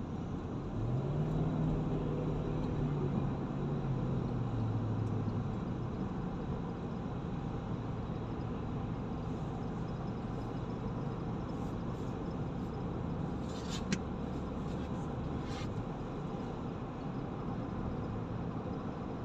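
Car engine and tyre noise heard inside the cabin while driving at highway speed. About a second in the engine note climbs, then falls back over the next few seconds, as with a burst of acceleration; a few faint clicks come near the end.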